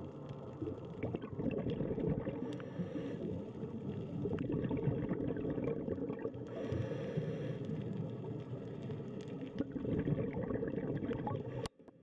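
Underwater sound: a steady low rumbling water noise with gurgling bubbles and scattered small clicks, brightening briefly about halfway through, then cutting off suddenly near the end.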